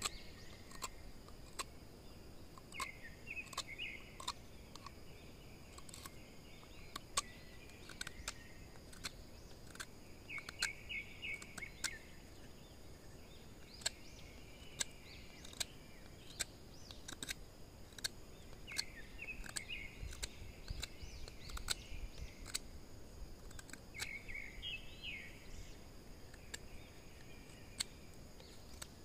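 Birds chirping in short trilling bursts about four times, over a steady high insect drone, with frequent sharp clicks and taps throughout.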